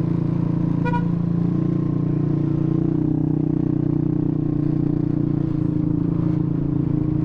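Motor scooter's engine running steadily at low speed as it creeps through slow traffic, its pitch rising slightly about a second and a half in. A short, high beep sounds about a second in.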